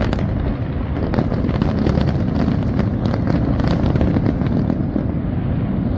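Fireworks going off in quick succession: many sharp cracks over a dense, continuous low rumble. The cracks thin out after about four seconds.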